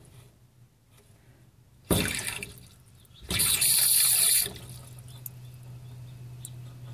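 Water spurting from a swamp cooler's float valve into the cooler's water pan as the float drops and opens it. There is a short gush about two seconds in and a stronger one for about a second past the three-second mark, then a fainter trickle as the valve closes.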